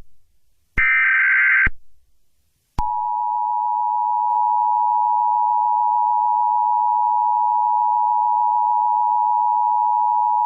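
Emergency Alert System broadcast tones: a short burst of screechy digital header data about a second in, then, from about three seconds in, the loud, steady two-tone attention signal held without change.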